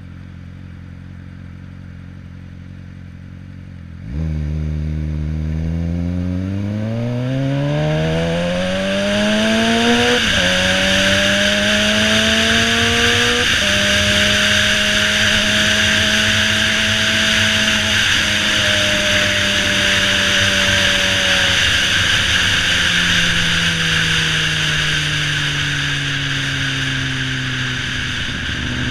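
Suzuki GSX-R600 inline-four idling, then about four seconds in it pulls away, revving up hard with two quick upshifts. It then holds a steady cruise before the revs ease off near the end. Wind rush on the microphone builds with speed.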